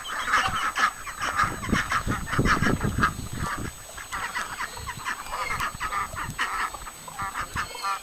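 Mixed domestic poultry calling: ducks, geese and hens giving a continuous run of short, overlapping quacks and clucks. A low rumble sits under the calls about two to three seconds in.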